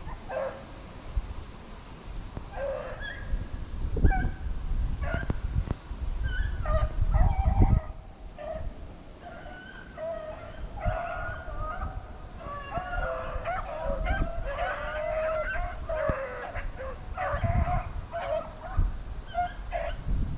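A pack of rabbit-hunting dogs yipping, whining and baying, several voices overlapping in short, frequent calls. Low rumbling bumps on the microphone come a few times.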